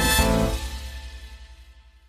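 Background music that cuts back about half a second in and fades away to silence.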